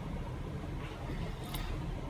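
Steady low room rumble, with one short sharp click about one and a half seconds in.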